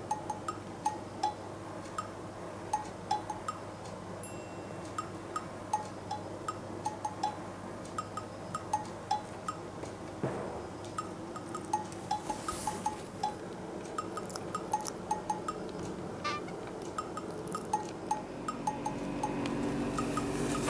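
Light background music of short plinking, bell-like notes recurring every half second or so.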